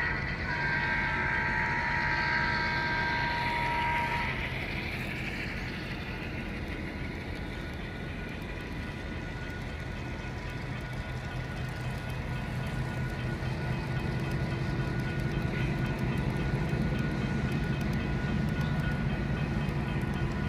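HO scale model freight train with locomotive sound: a chord-like horn sounds for about four seconds, then the low rumble of the engine and running train carries on, growing louder in the second half.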